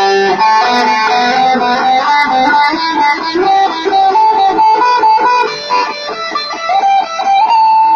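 Guitar played during a sound check: a quick melodic run of single notes that starts abruptly and ends on a long held note near the end.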